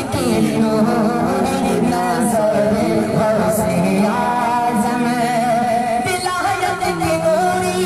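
A man singing a naat into a microphone, in long held notes that waver and slide in pitch.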